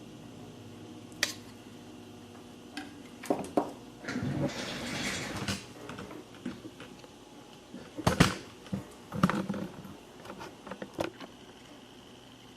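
Scattered clicks, taps and knocks of tools and a circuit board being handled on a workbench, with a hiss lasting about a second and a half around four seconds in. The loudest knock comes a little after eight seconds.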